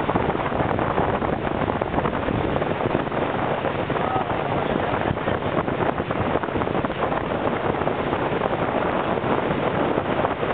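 Steady wind rushing over the microphone aboard a boat underway, with the boat's engine running beneath it.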